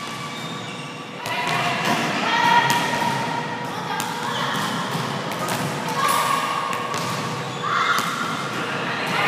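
Volleyball being struck during a rally, several sharp thumps of hands and arms hitting the ball, with players' drawn-out calls between the hits.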